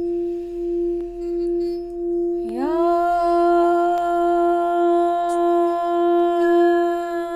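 Tibetan heart chakra singing bowl rimmed with a wooden mallet, singing one steady pulsing tone. About two and a half seconds in, a woman's voice comes in over it, sliding up into one long held note.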